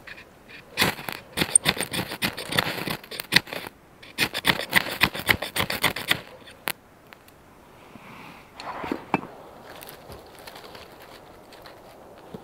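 Ferrocerium rod struck hard and fast with a knife, throwing sparks into tinder. It comes in two runs of rapid scrapes, one of about three seconds and one of about two, and the tinder catches.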